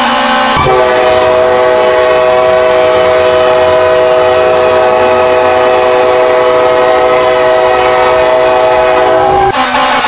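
K5LA multi-chime train horn sounding one long, steady chord, starting about half a second in and cutting off sharply near the end.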